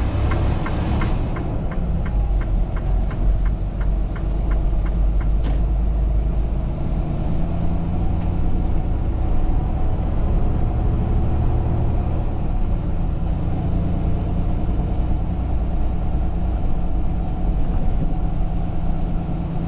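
Semi-truck cab while driving: the diesel engine's steady low drone with road noise. For the first five seconds or so the turn signal ticks about three times a second, then stops.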